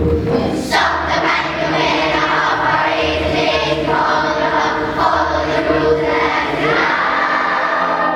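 Young schoolchildren singing together as a choir over an instrumental accompaniment.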